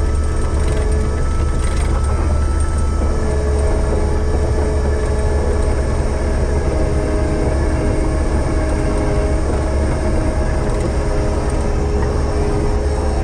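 Heavy diesel machinery running steadily, with a deep engine drone and a steady whine on top.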